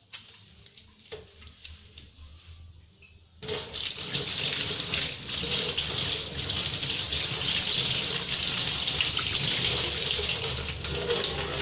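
Water running from a tap into a sink. It turns on suddenly about three and a half seconds in and runs steadily; before that there are only faint small knocks.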